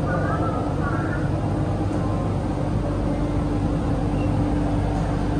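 Cabin running noise of an MTR Island Line Q-Train built by CRRC Qingdao Sifang, under way: a steady rumble with a hum held at one pitch.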